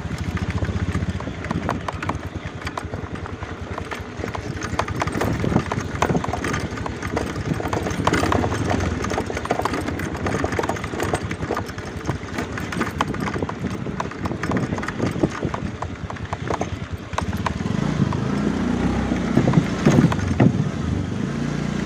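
Small motorcycle engine running as the bike is ridden over a rough dirt path, with a constant rattle and knocking from the bumps. The engine gets louder in the last few seconds.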